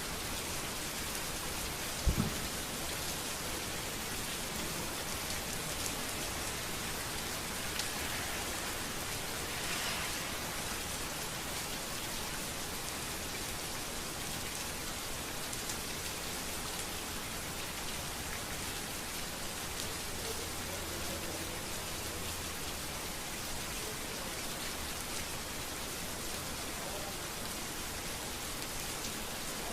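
Steady rain falling on a street, an even patter with scattered drip ticks. A single sharp knock about two seconds in.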